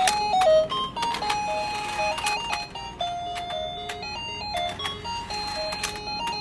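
A battery-powered duck stair-climbing toy playing its electronic tune, a simple beeping melody of single notes. Sharp plastic clicks and clacks from the mechanism sound throughout.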